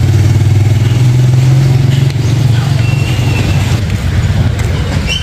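A small engine running steadily, a loud low hum.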